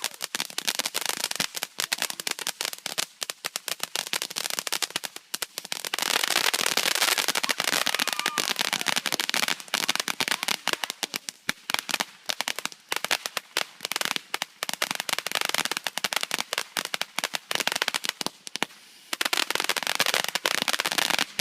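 Firecrackers going off in rapid crackling strings, a dense run of sharp cracks that is thickest from about six to nine seconds in and pauses briefly near the end.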